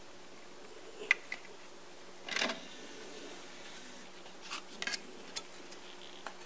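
Denon DVD-2900 disc player being operated: a sharp click about a second in, a short rattle as the disc tray comes out, then light plastic clicks and clatters as the disc is lifted off the tray and plastic disc cases are handled.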